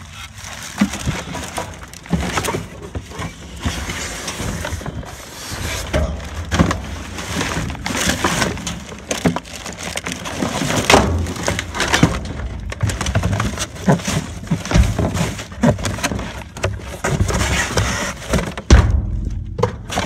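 Hands rummaging through trash: plastic bags and cardboard rustling and crinkling, with many irregular knocks and clatters as items are shoved about.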